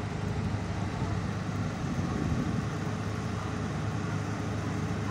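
Diesel engine of a river passenger launch idling steadily while the boat lies alongside the jetty, a steady low hum.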